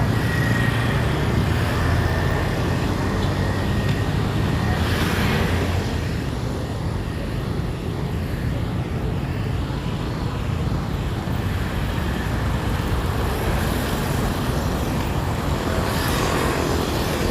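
Road traffic: a steady low rumble of engines, with vehicles passing about five seconds in and again near the end.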